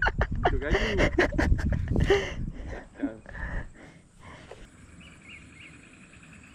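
Commotion of a hooked snakehead being pulled in: a rapid string of sharp knocks and splashy clatter with short excited cries, fading after about three seconds. Then a quiet background with insects buzzing.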